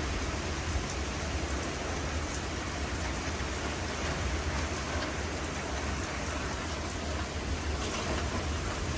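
Heavy thunderstorm rain pouring steadily, with small patters of drops striking close by. Strong wind gusts add a steady low rumble.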